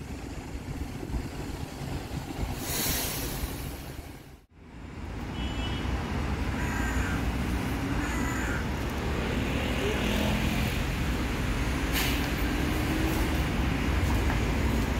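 Mercedes-Benz Citaro diesel city buses running. After a brief drop-out about four seconds in, a Citaro draws near and passes close with a slowly rising engine whine, and there is a short hiss of air about twelve seconds in.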